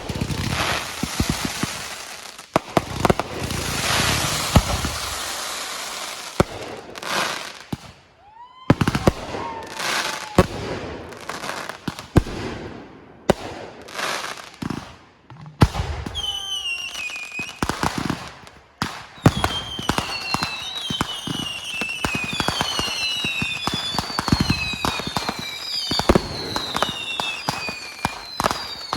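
Fireworks display: a dense run of bangs and crackling, and from about halfway through many whistling fireworks, each whistle falling in pitch, over rapid popping.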